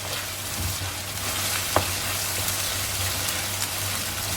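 Onions, ginger-garlic paste and whole spices (star anise, cinnamon stick) frying in hot oil, a steady sizzle, with one sharp knock just under two seconds in.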